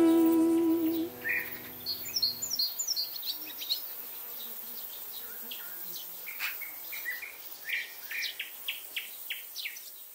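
The song's final chord fades out in the first second or two, then birds chirp and call outdoors in short, high notes, a few quick falling calls among them, for the rest of the time.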